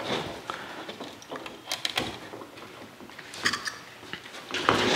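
Utility knife trimming excess screen mesh along a screen door frame, the blade clicking as it breaks through the mesh fibers, with rustling as the cut strip of mesh is pulled away.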